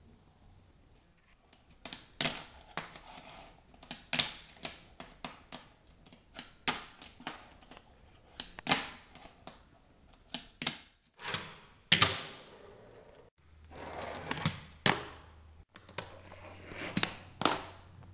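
Tech Deck fingerboard clacking on a hardwood floor as fingers pop and land tricks: irregular sharp clicks and taps, sometimes several in quick succession.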